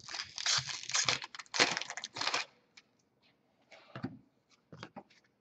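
A foil trading-card pack wrapper crinkling and tearing as it is opened, in a dense crackly run of about two and a half seconds. After that come a few light clicks and rustles as the cards are handled.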